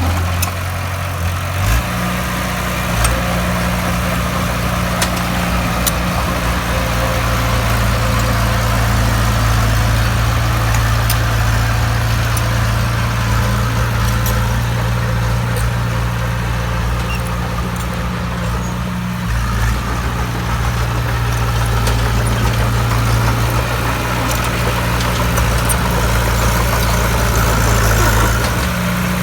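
Bulldozer's diesel engine running steadily under load, its note shifting a few times as the load changes.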